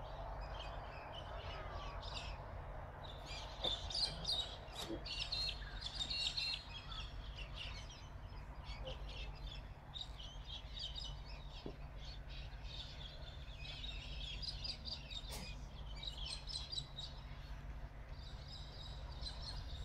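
Many birds chirping and calling in dawn chorus, short chirps and trills on and off, over a low steady rumble.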